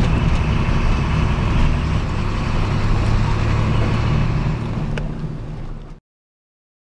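Road vehicle on the move, heard from on board: a steady engine hum over road noise, easing off near the end and then cutting out abruptly.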